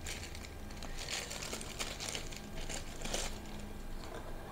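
Thin clear plastic packaging film crinkling and rustling in irregular bursts as it is pulled off a plastic container and crumpled by hand.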